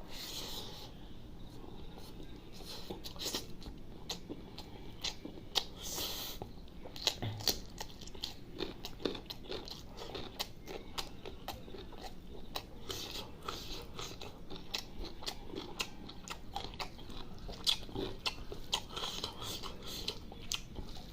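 Close-up eating sounds of a person chewing a mouthful of spicy chicken liver curry with rice: wet chewing and lip-smacking, with many short sharp clicks.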